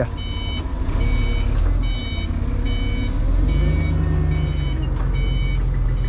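Forklift's reversing alarm beeping, short high beeps a little more than once a second, over the forklift's engine running, which speeds up about three and a half seconds in.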